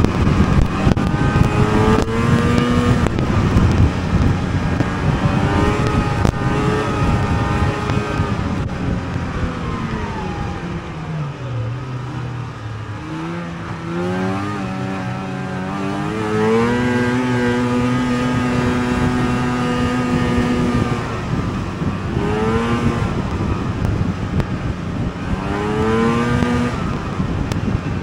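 Two-stroke snowmobile engine under way, its pitch rising and falling as the throttle is worked. About ten seconds in it drops almost to idle, then climbs back and holds steady for a few seconds before more short bursts of throttle near the end, with a rushing noise beneath it throughout.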